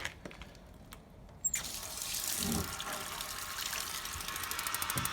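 Water tap opened about a second and a half in, water running steadily through the instant gas water heater; near the end a rapid ticking starts, the heater's igniter sparking.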